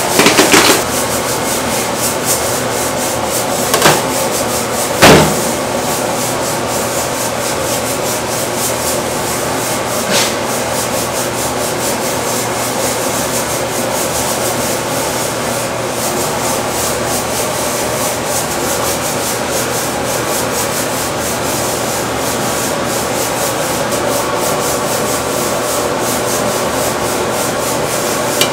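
Steady, loud rushing kitchen noise, with a few sharp knocks in the first six seconds and another about ten seconds in.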